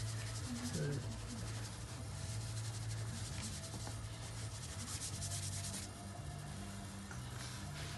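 Red chalk (sanguine) stick scratching and rubbing across drawing paper in rapid short strokes, lighter after about six seconds, over a steady low hum.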